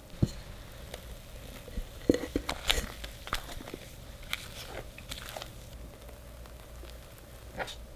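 Kitchen utensil handling: a dull knock about a quarter second in, then scattered clicks and taps of a spatula against a bowl and baking sheet, bunched between about two and three and a half seconds, with soft squishes of thick almond sponge batter being poured out and spread.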